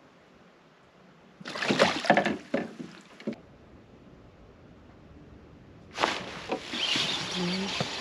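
Water splashing and knocking noises on a small fishing boat in two bursts, the first cutting off abruptly about three seconds in, the second starting about six seconds in.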